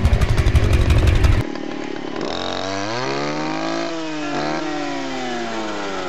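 A loud low rumble stops abruptly about a second and a half in. Then a two-stroke brush saw (clearing saw) engine revs up from idle, holds high with a brief dip, and slowly winds back down.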